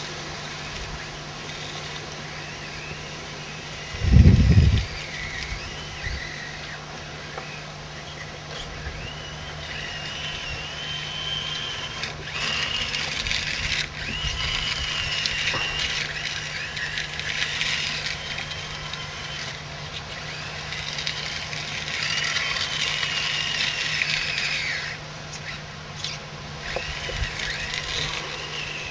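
Small electric motors of a radio-controlled 1/16-scale skid steer loader whining, their pitch wandering up and down as it drives and works. A loud low thump comes about four seconds in.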